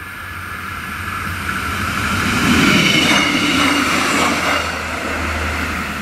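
A Class 628 diesel multiple unit passing over the crossing: the low drone of its diesel engine and the noise of its wheels on the rails swell to a peak about halfway through, then fade as it moves away.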